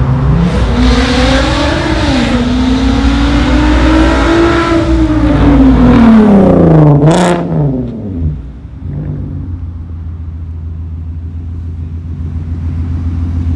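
Volkswagen Golf R32's 3.2-litre VR6 engine through an aftermarket DP exhaust, accelerating past: the exhaust note climbs for about four seconds, then falls away, with one sharp crack about seven seconds in. It then settles to a lower, quieter steady note.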